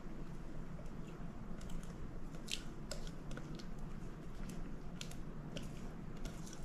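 Thick cream cheese filling sliding out of a glass batter bowl onto cake batter in a metal pan, faint and squishy, with a few light clicks of a spatula against the glass over a low steady hum.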